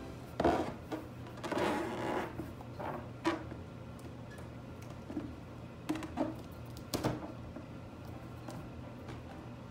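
Fingers stretching and knotting the neck of a large inflated latex balloon: scattered short rubbing and stretching sounds of the rubber, with no pop.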